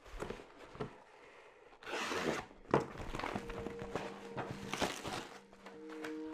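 Cardboard parcel packaging being torn open and handled: a ripping noise about two seconds in, then rustling and small knocks.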